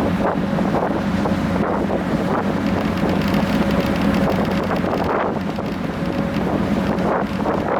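Ferry under way: the steady drone of the ship's engines, with wind buffeting the microphone in gusts.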